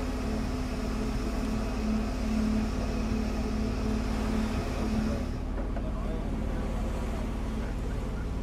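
An engine running steadily, a constant drone with a strong low hum; about five seconds in, the higher hiss drops away while the hum carries on.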